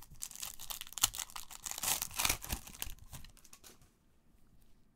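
A 2015 Upper Deck Marvel Vibranium trading-card pack being torn open by hand, its wrapper crackling and crinkling for about three and a half seconds. The tearing is loudest around the middle and stops as the cards come out.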